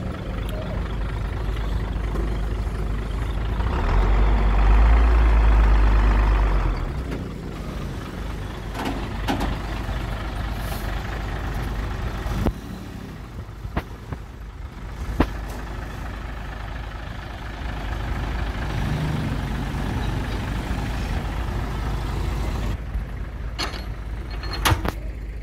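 Hino FG8J dump truck's diesel engine running, swelling louder for a few seconds early on as it is revved, then settling back to a steady run. Near the end, a few sharp metal knocks as the tailgate latches are struck with an iron rod.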